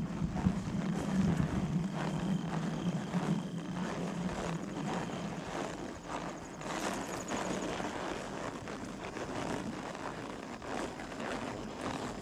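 Steady engine drone that fades out about five seconds in, over the soft, irregular footfalls of a horse walking on a trail.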